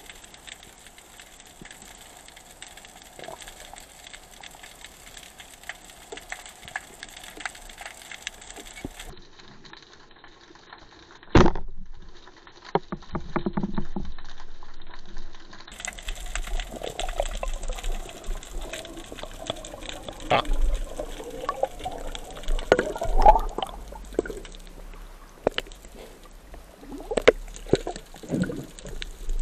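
Water moving around a submerged camera. A steady faint underwater hiss, then one sharp knock about eleven seconds in, then irregular water sloshing and splashing with many small clicks for the rest.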